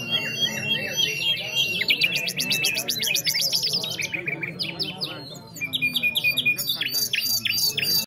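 Caged nightingales singing: varied phrases of whistles and chirps, with a fast run of rapidly repeated notes about two to four seconds in. There is a short lull just past the middle, then more clipped phrases.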